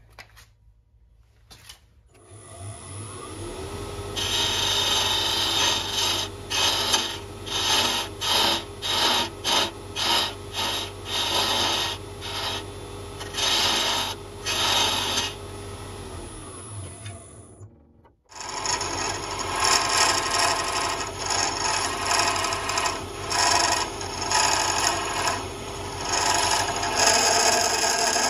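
Wood lathe running, with a turning chisel cutting into a spinning wooden blank and throwing off shavings. The cuts come as a series of short passes, then break off briefly and resume as steadier cutting.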